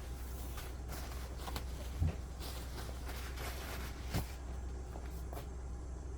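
Steady low hum of an air conditioner, with a few soft knocks about two and four seconds in.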